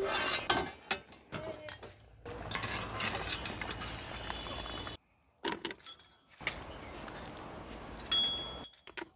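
Aluminium pot lid and metal slotted spoon clinking against an aluminium cooking pot, with a steady hiss of boiling water between the clinks. Near the end there is one clear ringing metal clink.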